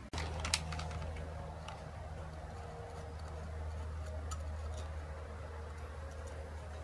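Faint steady electrical hum with a few light ticks while a chip's pins are soldered onto a circuit board with a soldering iron and solder wire.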